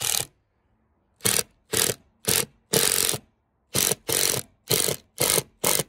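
Ryobi impact driver hammering a self-tapping composite deck screw into Trex composite decking, run in about ten short bursts, each under half a second, as the screw head is set down flush with the board.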